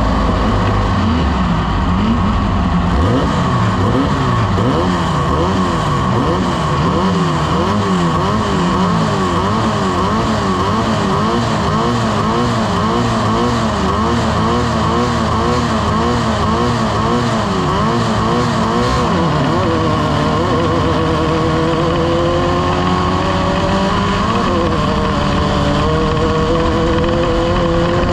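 Off-road race vehicle's engine running hard, its revs swinging up and down about once a second, then climbing more steadily through the last third.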